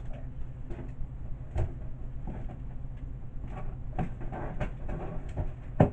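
A large cardboard shipping box being tugged and pried open by hand: scattered knocks, scrapes and rustles of cardboard, with one sharp, loud knock just before the end.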